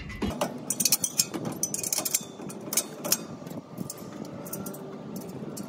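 Irregular light metallic clicks and clinks of M8 bolts, washers and nuts being fitted by hand through the steel rear bar and mast of a bike rack, busiest in the first few seconds, over a steady background noise.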